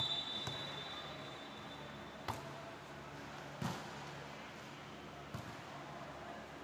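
A volleyball being struck: a sharp serve hit about two seconds in, a second hit about a second later and a fainter touch near the end, each echoing in the hall. A referee's whistle is fading out over the first two seconds, over a steady low hall hum.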